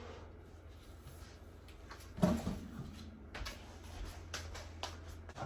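A few light knocks and clicks of objects being handled, the loudest a short knock about two seconds in, over a low steady hum.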